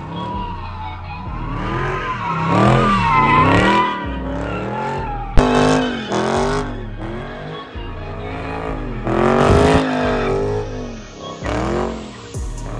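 A car engine revving hard, its pitch rising and falling again and again, with tires squealing. There is a single sharp crack about five seconds in.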